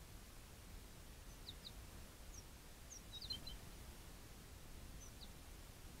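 Faint, thin high-pitched chirps from a small songbird. Single short falling notes are scattered through, with a quick cluster a little past the middle, over a low steady background rumble.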